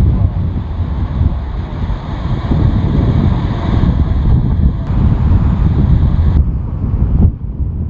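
Strong wind buffeting the microphone in a heavy, uneven rumble. A steadier hiss sits above it and drops away suddenly in two steps near the end.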